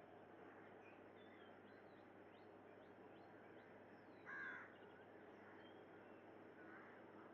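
Faint natural ambience of birds calling: many short high chirps over a steady background hiss, with one louder call a little past halfway.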